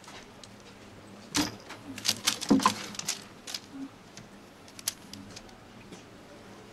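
A cat scrambling onto a wooden box edge and batting and biting a feather wand toy. There is a quick cluster of sharp clicks and rattles from about a second and a half in to three and a half seconds, then a few light ticks.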